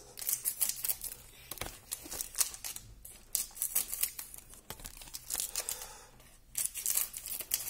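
Wrappers of 1993-94 Topps Premier hockey card packs being torn open and crinkled by hand, in irregular runs of sharp crackling with short pauses between.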